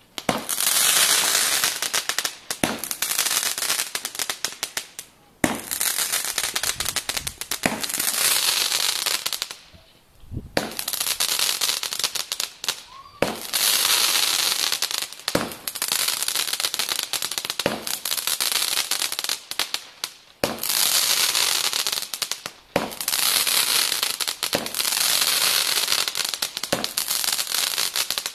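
Fireworks going off in a long run: a sharp bang about every two seconds, each followed by a couple of seconds of dense crackling.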